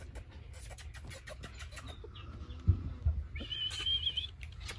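A high, wavering animal call lasting about a second, past the middle, among light ticks and rustling. Two dull low thumps come just before it.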